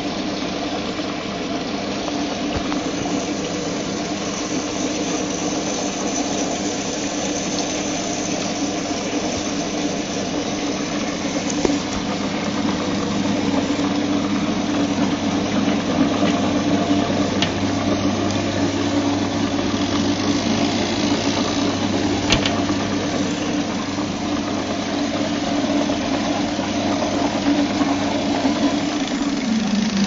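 Fensa turbine washing machine washing a load: its motor hums steadily as the impeller churns the soapy water. The hum drops in pitch just before the end.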